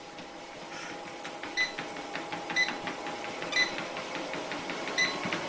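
Treadmill running at a slow walking pace: a steady motor hum and whine, with a short click about once a second as the belt goes round.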